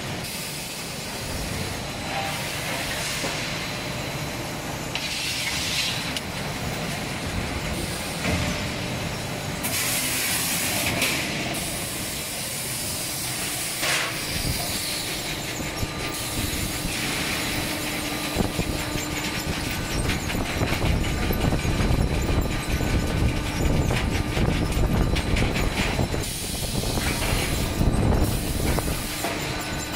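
Automatic sheet-metal feeding, straightening, shearing and stacking line running: steady rumble of rollers and chain conveyors, broken by several short bursts of compressed-air hiss from the pneumatic stacker. The rumble grows louder in the last third.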